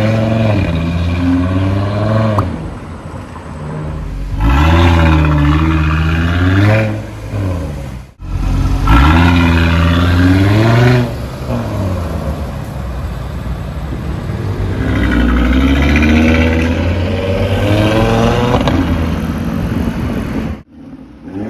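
Audi RS Q3's turbocharged five-cylinder engine through a straight-piped exhaust, revving loudly as the car accelerates away. Its pitch climbs and drops back in several surges.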